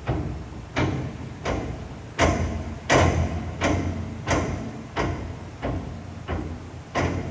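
Metal door of a vertical hydraulic cardboard baler rattled and clanking against its safety latch, about one and a half knocks a second, over a steady low hum.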